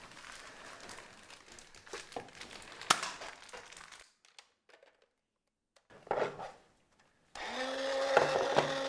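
A small electric motor, the toy pottery wheel of a children's pottery set, switches on suddenly about seven seconds in and runs with a steady hum of several fixed tones. Before it there are only a few light clicks and knocks.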